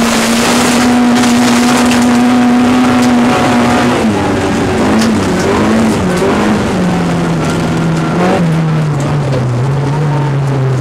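Race car engine heard from on board, held at steady high revs for about three and a half seconds. The pitch then drops about four seconds in, swings up and down, and steps lower again around eight seconds in.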